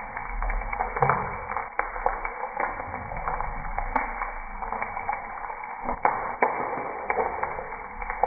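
Whole boiled eggs frying in hot oil in a pan: steady sizzling with scattered sharp pops, and the clicks of a plastic spatula against the pan as the eggs are turned.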